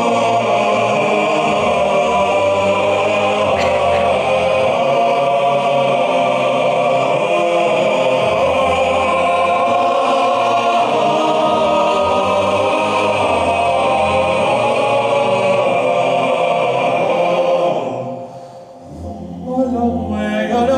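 Male choir singing in sustained, full harmony. Near the end the voices die down for a moment, then come in again with a new phrase.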